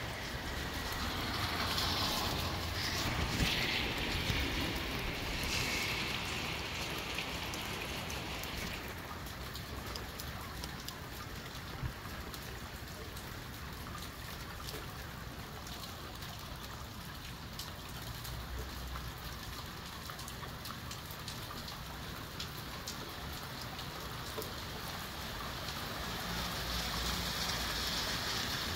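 A wind-driven rain shower: a steady hiss of rain with many drops ticking, over a low rumble of wind. It is heavier for the first several seconds, eases, and picks up again near the end.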